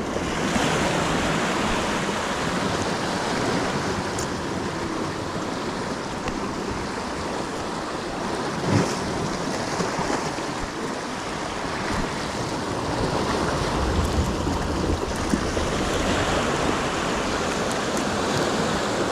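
Ocean surf washing steadily against the shoreline, with a brief knock near the middle.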